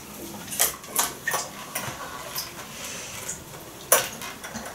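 Scattered clicks and knocks from handling an electric hand mixer as its metal beaters are fitted, with the sharpest click near the end; the motor is not running.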